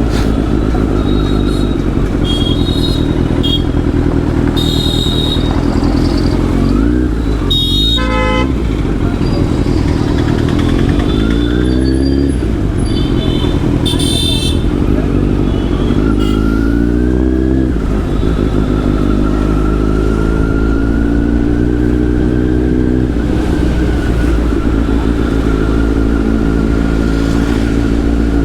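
Kawasaki Z900's inline-four with an SC-Project exhaust running at low speed in traffic, its note rising and falling a few times with the throttle. Short vehicle horn toots sound several times, the loudest about eight seconds in.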